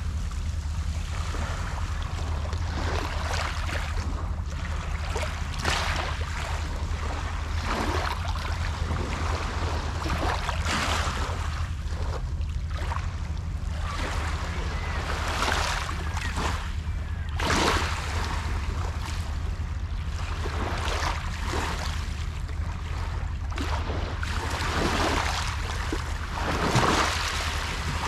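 Small waves on a calm sea lapping and washing over a pebble beach, a soft swash every few seconds, over a steady low rumble.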